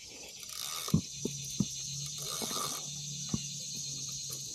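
A steady high insect drone carries through, with a few sharp knocks and two short swishes. A low steady hum starts about a second in, breaks off briefly and comes back.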